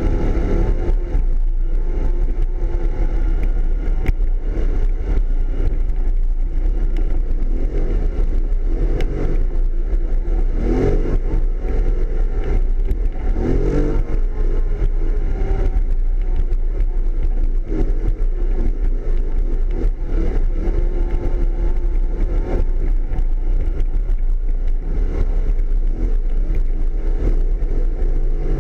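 All-terrain vehicle's engine running as it drives over a dirt trail, its note rising and falling with the throttle, with frequent knocks and rattles from the rough ground.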